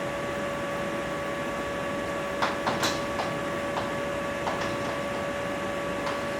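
Steady electrical hum and hiss of a lecture-room recording, with a handful of short, sharp taps or clicks from about two and a half to four and a half seconds in and one more near the end.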